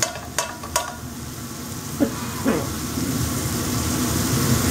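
Chopped onions sizzling in a skillet of meat drippings, releasing their water to loosen the browned bits on the pan's bottom. Three sharp clicks of metal tongs come in the first second, and the sizzle grows louder toward the end.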